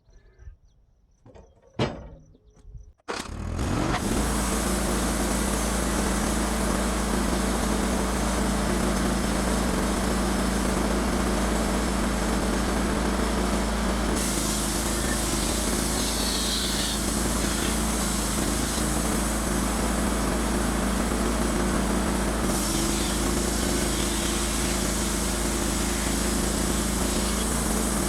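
A few knocks, then the Wood-Mizer sawmill's motor starts about three seconds in and runs steadily.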